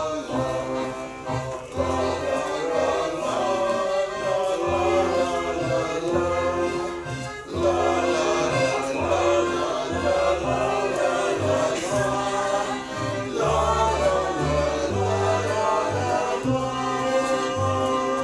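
A song sung by several voices together over instrumental accompaniment, with a bass line stepping from note to note.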